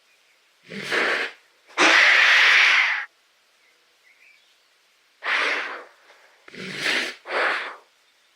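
Giraffe snorting: five breathy blasts of air. The second, about two seconds in, is the longest and loudest, and the last two come close together near the end.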